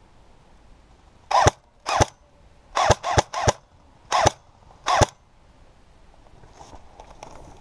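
Airsoft gun firing seven single shots, each a sharp short crack, spaced unevenly over about four seconds, three of them close together in the middle.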